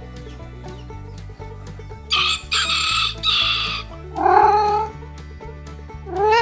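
A rooster crows once, a rasping call in three parts, over steady background music. Near the end a cat meows twice.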